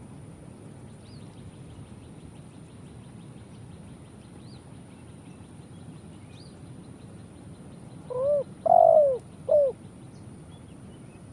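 Spotted dove (tekukur) cooing once about eight seconds in: three low notes, the middle one longest and loudest. Behind it runs a steady hiss with faint high chirps.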